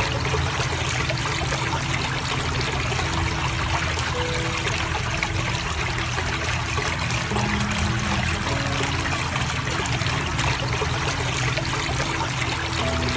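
Water bubbling up from the tops of three stone fountain bubblers and trickling steadily over the stone sides.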